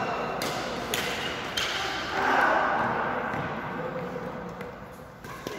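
Badminton rally: sharp clicks of rackets striking the shuttlecock, three in the first couple of seconds and one more near the end, with voices in the background.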